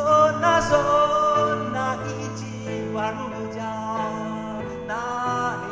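Piano played as accompaniment while a man sings a Japanese enka melody in long, wavering held notes.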